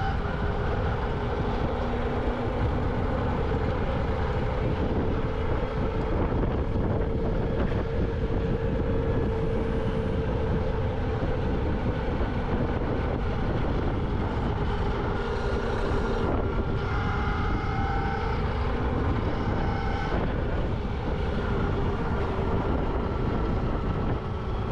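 Electric dirt bike being ridden: a motor whine that drifts slightly up and down in pitch with speed, over a steady rush of wind on the microphone.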